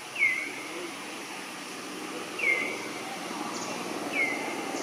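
Three short, high-pitched animal squeaks, each dipping slightly in pitch, about two seconds apart, over a steady hiss.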